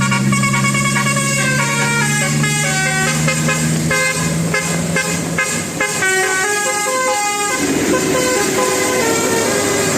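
Bus telolet horn, a Basuri-type multi-tone musical air horn, playing a quick tune of short stepped notes over a low steady hum. About seven and a half seconds in, the tune moves to lower notes that step downward.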